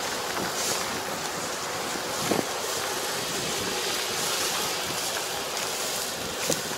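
Kubota ER470 four-row combine harvester running steadily, engine and threshing machinery making an even, continuous noise, with a couple of brief knocks.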